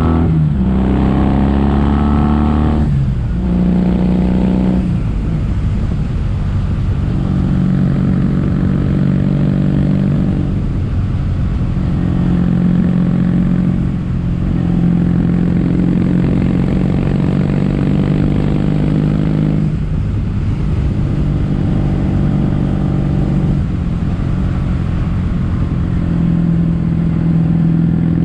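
Kawasaki W800's air-cooled parallel-twin engine running through Yamato stainless-steel caburton silencers while being ridden. The exhaust note climbs with the revs in the first few seconds, broken twice by short drops in pitch, then runs at a steadier pitch with brief dips every few seconds.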